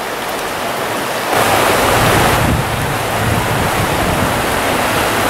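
Steady rush of water from a shallow stream riffle. About a second and a half in, wind starts gusting on the microphone and adds an uneven low rumble.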